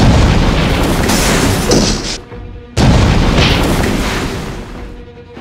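Two explosion sound effects: a loud blast with deep rumble that cuts off about two seconds in, then a second sudden blast about three seconds in that slowly fades away.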